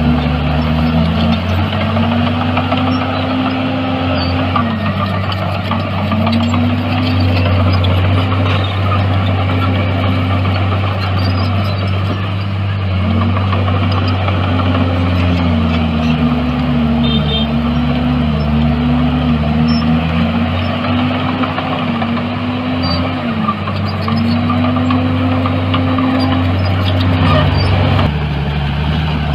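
Heavy diesel engine of earthmoving equipment running hard with a deep, steady rumble. Its note repeatedly sags and climbs back every few seconds, then settles lower near the end.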